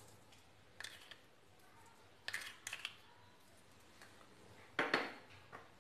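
Four light clicks and taps of a spoon and small bowls being handled and set down while salt is added to mashed potato: one about a second in, two close together a little past the middle, and one near the end.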